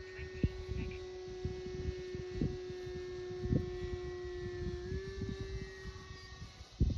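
Electric ducted fan of an Arrows RC 64mm Marlin model jet in flight, a steady whine that steps up slightly in pitch about five seconds in. Wind buffets the microphone with irregular low thumps.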